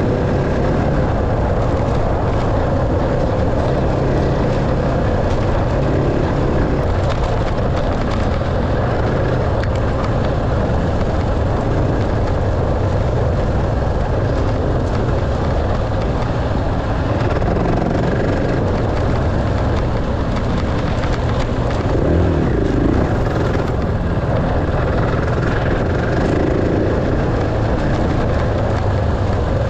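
Dirt bike engine running while riding, its pitch rising and falling briefly with the throttle, over steady rough noise.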